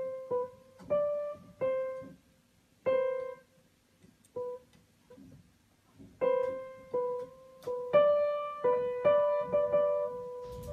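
Upright piano keys pressed by a cat's paws: single notes at uneven intervals on the same few pitches, a pause of about two seconds partway through, then a denser run of notes, some held and overlapping, near the end.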